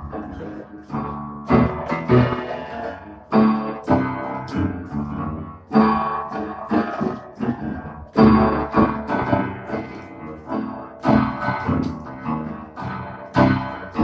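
Piano played by a learner: chords and notes struck one after another at an uneven pace, each ringing out and fading before the next.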